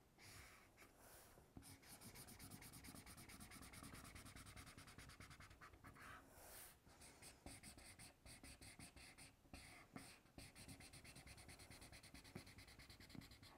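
Felt-tip marker colouring on paper in quick, faint back-and-forth strokes, with a few short pauses.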